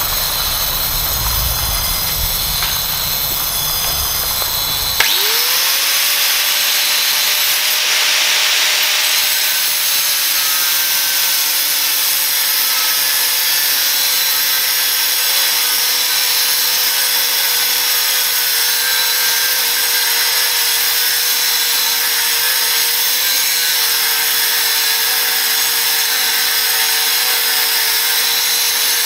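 Angle grinder cutting steel flat bar: a steady motor whine with the hiss of the wheel grinding through the metal. About five seconds in the sound changes abruptly: a low rumble stops and the whine rises quickly, then holds, sagging slightly as the cut goes on.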